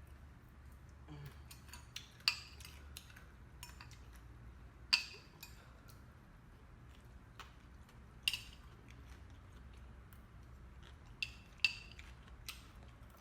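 Eating utensils clinking against dishware, about five sharp clinks with a brief ring, plus a few fainter taps, while the spicy papaya salad is eaten.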